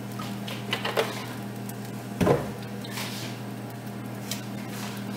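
Glass olive-oil bottle knocking as it is handled and set down on a stone countertop; the loudest knock comes about two seconds in, with lighter taps around it. A steady low electrical hum runs underneath.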